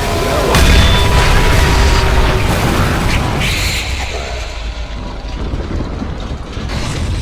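Explosion sound effect: a deep boom about half a second in, rumbling on for a few seconds and fading, with another burst of noise about three and a half seconds in.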